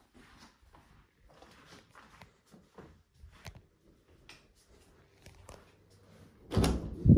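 Faint footsteps and rustling from someone walking through a small room with a handheld phone. Near the end comes a loud cluster of deep thuds and knocks as an interior door with glass panels is handled and pushed open.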